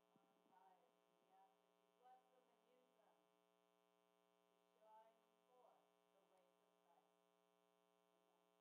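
Near silence: a faint steady electrical mains hum, with a few faint words of an off-mic voice in the first three seconds and again around five seconds in.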